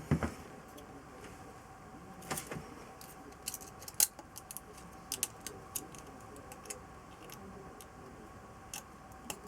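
Scattered small metal clicks and clinks of hand tools and engine parts being handled, over a faint steady hum.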